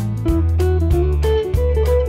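Background music: a guitar plays a melody of short notes over held bass notes.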